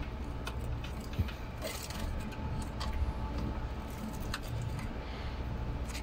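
Light clicks and small metallic rattles scattered over a steady low hum, as the wire-mesh aviary cage is handled.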